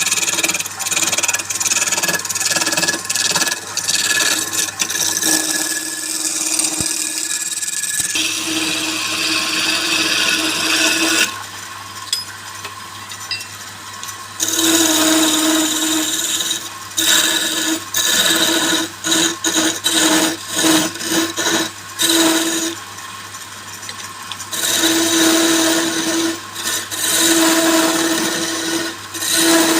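Wood lathe running while a turning tool cuts the spinning wood: a loud, hissing, scraping cut in passes with a steady tone. It stops twice, for a few seconds each time, leaving only the lathe's low steady hum.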